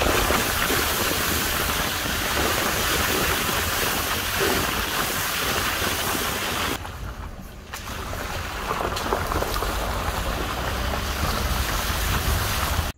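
A car driving through a flooded street, its tyres throwing up a steady hiss of spray, with wind buffeting the microphone held out of the window. The noise drops away briefly about seven seconds in.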